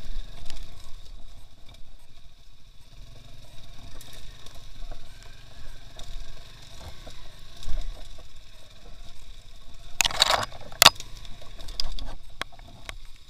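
Two-wheel-drive off-road motorcycle engine running, with two sharp clattering knocks about ten seconds in.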